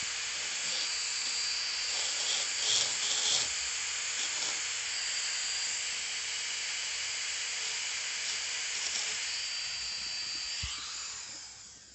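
High-speed dental handpiece running, a steady air hiss with a thin high whine, as it cuts the cavity preparation in an upper first molar; it spins down near the end.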